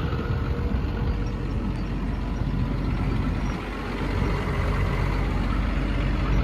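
Cummins diesel engine of an XCMG XE210CU excavator idling steadily.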